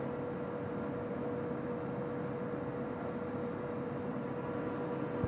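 Steady machine hum with a faint constant whine and no other events.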